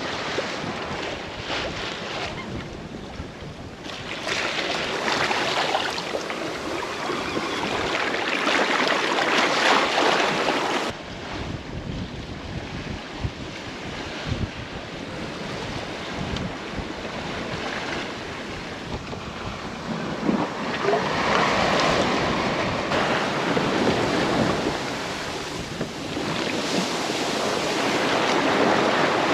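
Sea water rushing and splashing along a sailboat's hull as it sails through rough waves, with wind buffeting the microphone. The noise swells and falls in surges.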